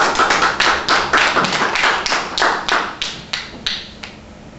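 Small audience applauding, with individual claps distinct, thinning out and stopping about four seconds in.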